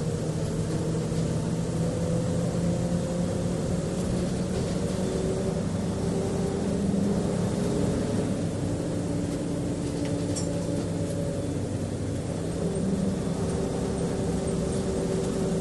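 Bus engine running, heard from inside the passenger cabin: a steady low hum with whining tones that slowly shift in pitch as the bus moves.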